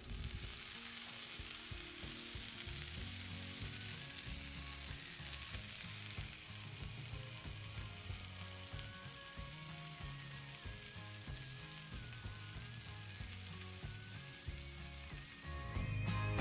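Food sizzling steadily as it fries in a pan, with soft background music underneath.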